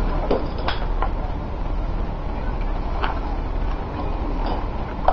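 Shipyard ambience: a steady low rumble and noise, with a few faint knocks.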